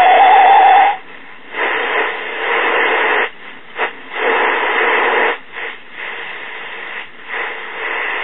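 Late-1960s Lloyd's AM transistor clock radio being tuned across the band for distant stations. A wavering whistle plays for about the first second, then comes hiss and static that cuts out briefly several times as the dial moves between signals.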